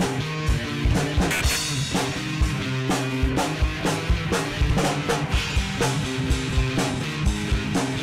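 Rock band playing live in a rehearsal room: drum kit with kick and snare beating steadily under electric guitars and electric bass. A cymbal hit rings out about a second and a half in.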